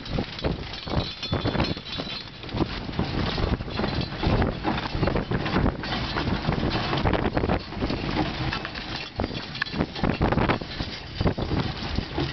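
Wind buffeting the microphone on an open boat deck, over a dense, irregular run of knocks and slaps.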